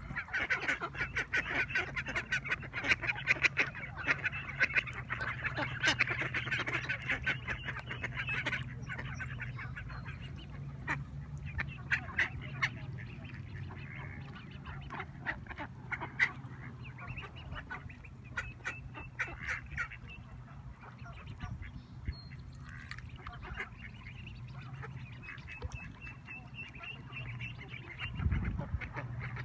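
A flock of mallard ducks quacking and chattering on the water. The calls come thick and fast for the first eight seconds or so, then thin to scattered bursts.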